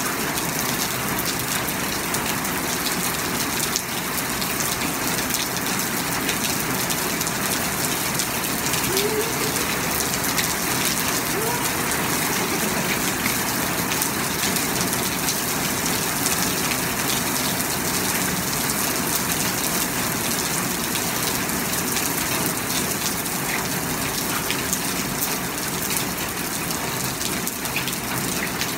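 Rain shower pouring steadily onto a wet, puddled street, a dense even hiss of falling rain and splashing drops.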